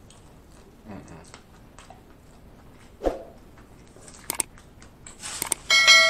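Close-up eating sounds: chewing a sandwich, with a sharp crunchy bite about three seconds in. Near the end come two quick clicks and then a loud bell chime from a subscribe-button sound effect, which rings on.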